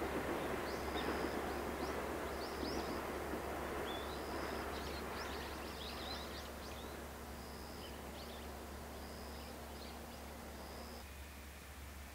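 Rumble of a train that has just passed, slowly fading away, with birds giving many short, high chirps over it.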